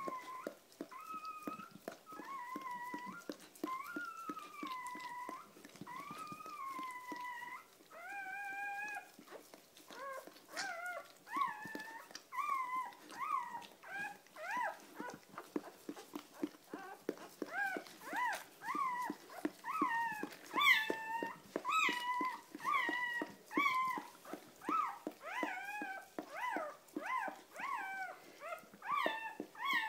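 Newborn puppy crying: long, wavering, high whines for the first several seconds, then a quick run of short, rising squeaks, a few each second, growing louder. Faint clicks and rustling run underneath.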